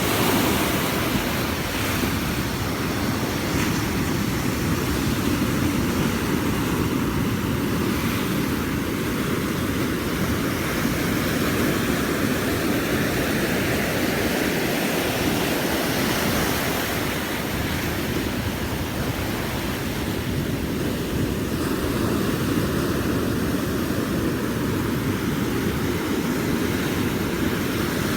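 Ocean surf breaking on a beach: a steady roar of waves that slowly swells and eases.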